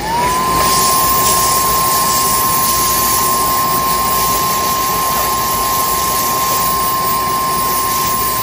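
Dry-cleaner's spotting gun spraying onto a stain on a silk scarf, the stage where the stain is washed out. It gives a steady hiss with a whistle-like tone that rises briefly at the start and then holds at one pitch.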